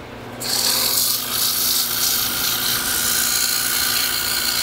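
100-grit sandpaper pressed against a wooden sphere spinning on a small lathe: a loud, steady hiss that starts about half a second in, over the lathe motor's steady hum.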